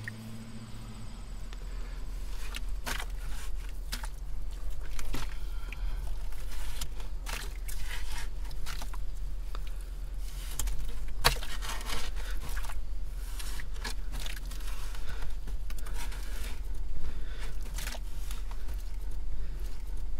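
A small hand tool scraping and digging into wet, packed privy dirt: irregular scrapes and crunches of soil, over a steady low hum.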